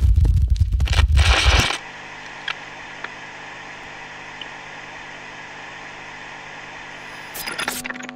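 Glitchy electronic sound design: a loud low rumble with crackling cuts off suddenly a little under two seconds in, leaving a steady hum of several held tones with a few faint clicks, and crackling returns near the end.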